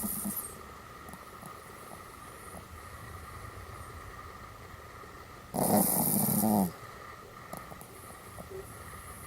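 Pomeranian dog giving one drawn-out vocal greeting, about a second long, with a bending pitch, about halfway through. The tail of a similar sound is heard at the very start.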